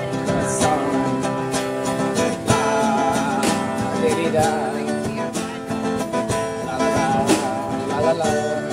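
Acoustic guitar strummed and picked in a live performance, chords ringing steadily.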